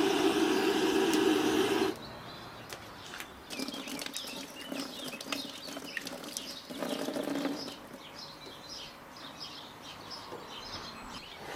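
A gas torch rushes steadily as it fires the charcoal in a samovar's firebox, cutting off about two seconds in. Then water trickles and splashes from a garden tap over hands being washed, with birds chirping.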